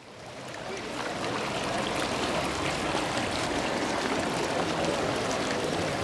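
Steady splashing and trickling of water from a fountain jet into its basin, fading in over the first second.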